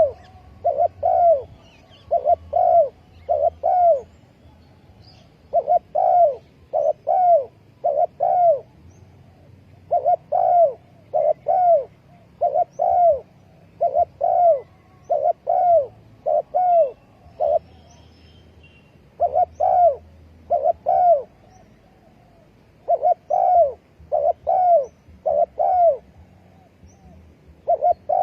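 Spotted dove cooing: repeated phrases of three or four arched coos, with short pauses between phrases.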